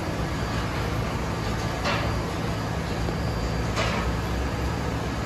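New York City subway train at the station, a steady low hum with a constant level, and two short hisses about two seconds in and again near four seconds.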